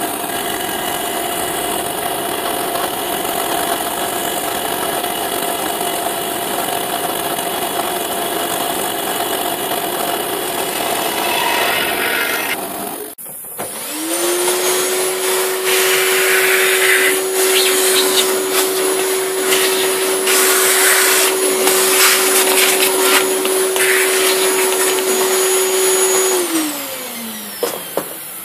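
CNC milling machine with an end mill cutting wood: the spindle running and the cutter chewing through the timber over a steady hiss from the stepper motors. The noise breaks off about 13 seconds in. It resumes with a steady whine and crackling cuts, and near the end the whine falls in pitch and fades.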